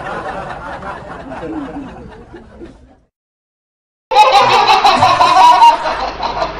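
Laughter fading away over about three seconds, then a second of dead silence, then a new, louder burst of laughter that starts suddenly about four seconds in.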